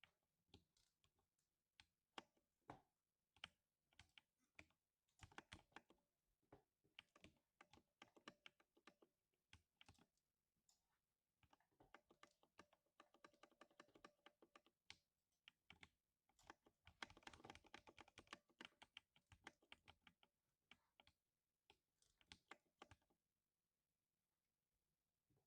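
Quiet typing on a lubed 60% mechanical keyboard, its keys giving a soft thock. The keystrokes come in irregular runs that quicken into fast bursts and stop shortly before the end.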